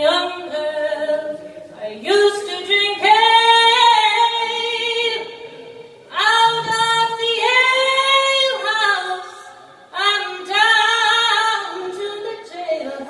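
A woman singing a slow folk ballad solo, holding long notes in phrases of a few seconds with short breaks between them; no instrument stands out under the voice.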